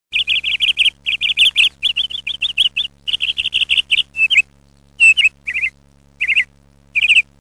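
Small bird chirping: quick runs of high chirps in bursts, broken by short pauses around the middle, over a faint steady hum.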